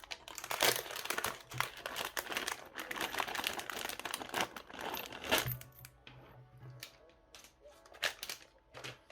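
Plastic packaging crinkling and rustling as it is opened by hand, dense for about five seconds, then a few scattered crackles.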